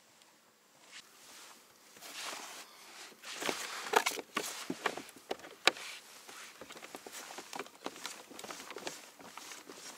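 Knocks and clicks of gear being handled on a kayak. They start after a quiet first second, are loudest about four to six seconds in, then carry on as lighter, quicker clicks.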